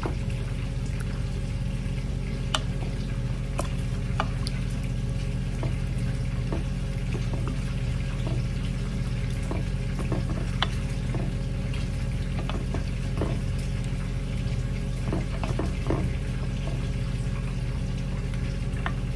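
Two wooden spoons tossing raw chicken pieces in a soy sauce and vinegar marinade in a glass bowl: wet squelching and sloshing with scattered clicks of the spoons against the bowl, over a steady low hum.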